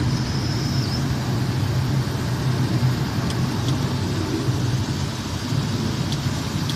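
Boeing 737 just after takeoff: a steady low drone of engine and airflow noise over a broad hiss, with a faint high steady tone in the first second and a few faint clicks.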